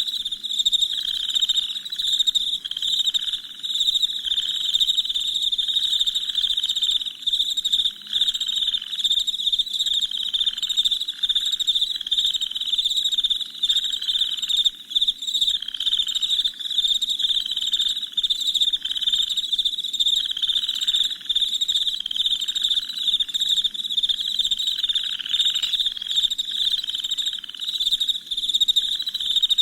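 Crickets chirping in a dense, unbroken night chorus, with a lower call repeating about once a second underneath.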